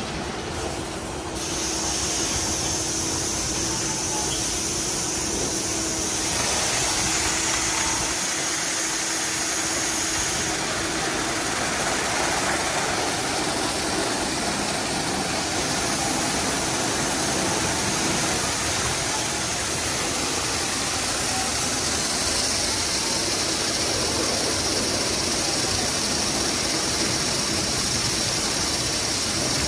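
Automatic tunnel car wash running: spinning cloth brushes scrubbing a foam-covered car while water and soap spray, a steady hiss. A low machinery hum fades out about ten seconds in.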